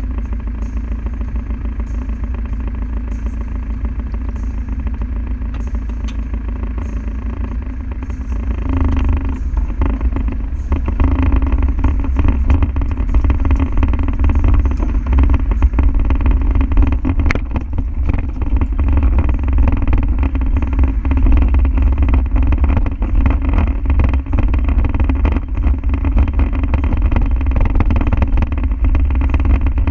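Land Rover Defender's diesel engine running, growing louder about nine seconds in and then holding at the higher level as the vehicle drives on.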